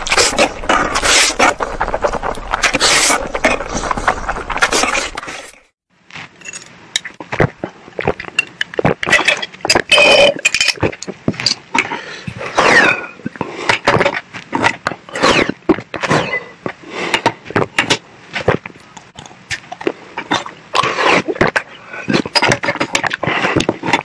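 Loud wet slurping of spicy instant noodles for about five seconds. After a brief gap, drinks are sipped and gulped from glass test tubes, in many short sharp smacks and clicks.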